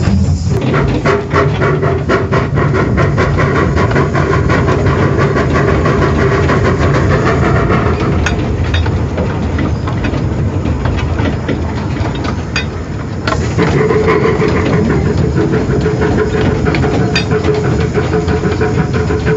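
1915 Kerr Stuart Joffre-class 0-6-0 side-tank steam locomotive running along the line, with steam hiss, rapid rattling and clicking from the engine and wheels. It grows louder about thirteen seconds in.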